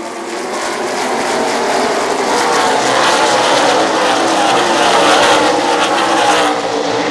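The field of NASCAR Sprint Cup stock cars and their V8 engines accelerating past in a pack at the race start. It is a dense mass of overlapping engine notes that grows louder and falls in pitch as each car goes by.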